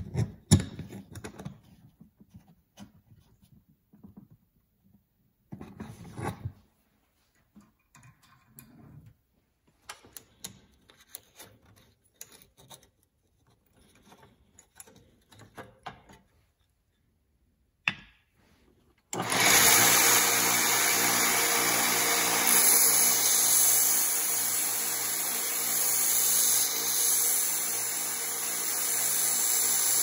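Scattered small clicks and taps of metal knife parts being handled. About two-thirds of the way in, a narrow-belt sander starts suddenly and runs loudly and steadily, grinding a small steel knife part, its level rising and falling a little as the part is worked.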